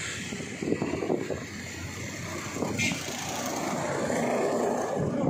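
A vehicle moving slowly along a street, with steady engine and road noise and indistinct voices, and a brief hiss about three seconds in.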